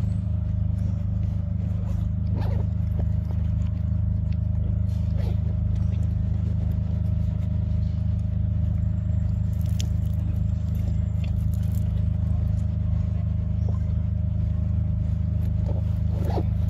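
A steady low hum throughout, with faint scattered clicks and smacks of young macaques biting and chewing a ripe mango.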